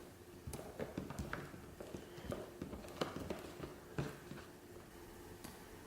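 A mixing utensil stirring a foamy glue and shaving-cream mixture in a bowl, giving faint, irregular clicks and taps against the bowl.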